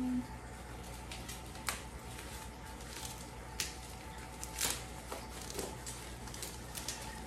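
Plastic packaging rustling and crinkling as a small parcel box is handled and unwrapped, with scattered light clicks and crackles.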